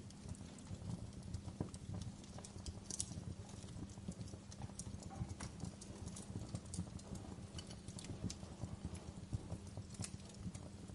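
Wood fire crackling in a fireplace: irregular sharp pops and snaps over a steady low rumble of burning.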